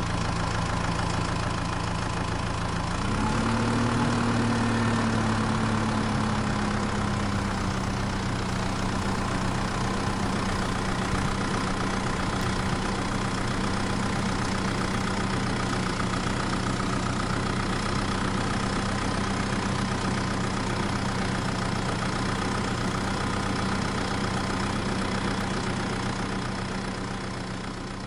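A vehicle engine running steadily at idle. About three seconds in it speeds up and gets louder, then eases back down to a steady idle over the next few seconds, and it fades a little near the end.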